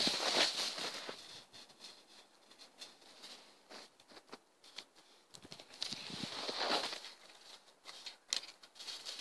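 Footsteps crunching in snow, loudest in the first second and again about six to seven seconds in, with scattered small sharp clicks.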